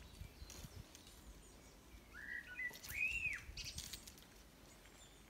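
A small bird calls briefly about two seconds in: a short warble followed by one arched whistle that rises and falls, with a few faint high chirps around it.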